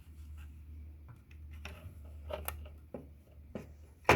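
Plastic wiring plug connectors for a car door mirror being handled and pushed together: scattered small clicks and rattles, with a sharper knock near the end, over a steady low hum.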